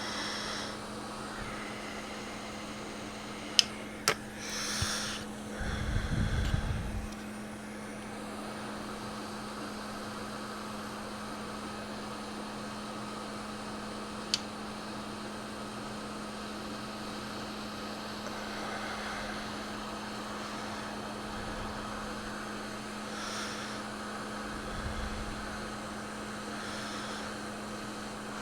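Steady airflow hiss and hum of a hot-air rework station heating the solder-ball stencil to reflow the balls. A few sharp clicks come at about four seconds and again midway, with a brief low bump around six seconds in.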